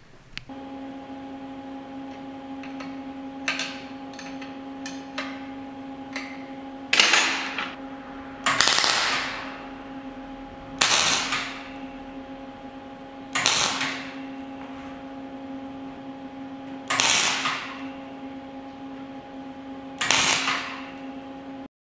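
Welding machine humming steadily, with about six short, loud bursts of crackling hiss, each about a second long and fading out, and a few small clicks before them; the hum cuts off suddenly near the end.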